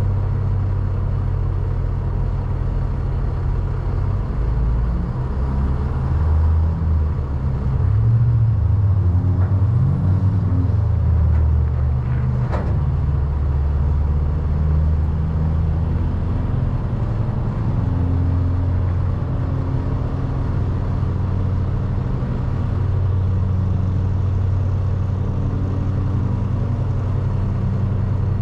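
Semi truck's diesel engine idling: a steady low rumble that shifts a little in pitch and level, with a single short click about halfway through.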